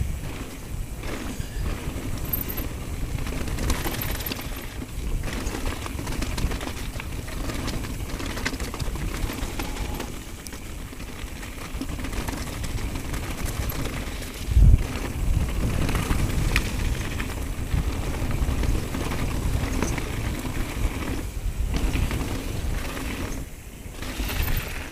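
Downhill mountain bike rolling fast over a loose gravel and rock trail: tyres crunching on stones, the bike rattling over the rough surface, with rushing wind on the camera. A single heavy thump about halfway through, where the bike hits a bump.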